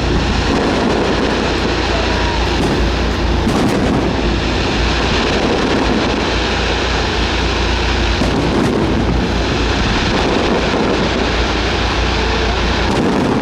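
Fireworks display: a dense, continuous barrage of firework bursts and rumbling booms, with a few sharper cracks standing out, around four and eight and a half seconds in.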